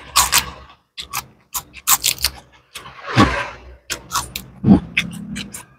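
Close-up chewing of a mouthful of raw green lalapan leaf and rice, with many quick wet crunches, clicks and lip smacks, and two louder, longer mouth sounds about three and about four and a half seconds in.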